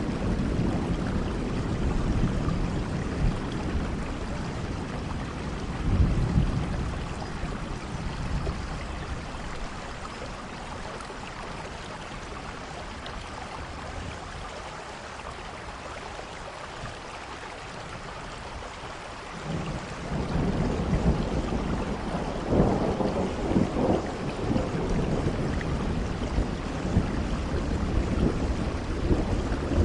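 Steady rain with low rolling thunder: a heavy rumble in the first few seconds fades to a quieter stretch of rain alone, then another long roll of thunder builds about two-thirds of the way through.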